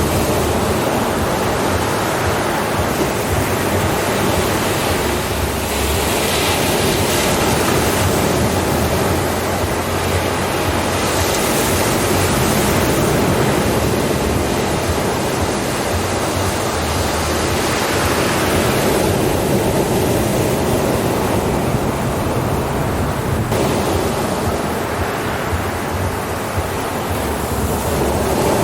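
Ocean surf: a continuous rush of waves breaking and washing in, swelling in the high hiss every five or six seconds as each wave comes in.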